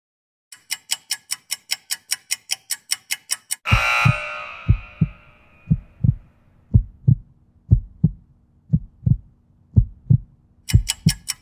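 Interval-timer sound effects. First comes fast ticking, about six ticks a second, counting down the last seconds of a work interval. About four seconds in, a ringing signal marks the switch to rest and dies away over about a second and a half. During the rest period there are paired low thumps about once a second, like a heartbeat, over a faint low hum, and the fast ticking starts again near the end as the rest runs out.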